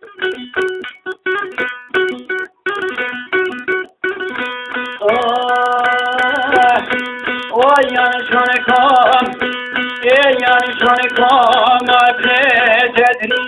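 Albanian folk song: a plucked string instrument plays a choppy run of short notes, and about five seconds in the music fills out with longer, held, ornamented melody notes.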